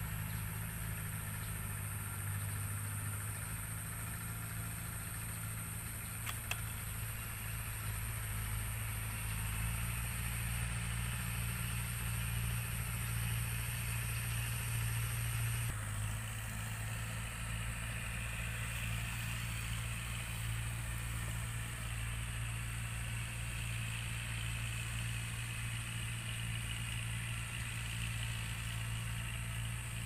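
A small engine running steadily at one even pitch, with a slight change in its sound about halfway through.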